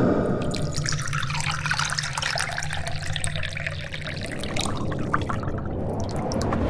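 Vodka poured from a glass bottle into a glass shot glass: a steady splashing pour as the glass fills, thinning to a trickle near the end.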